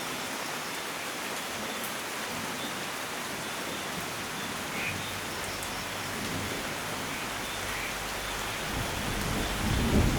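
Steady rain falling, with a low thunder rumble building in the last second or two.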